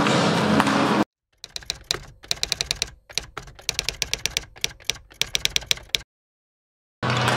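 Typewriter-style typing sound effect: quick runs of sharp key clacks with short pauses between them. A stretch of music cuts off about a second in, and loud sound returns near the end.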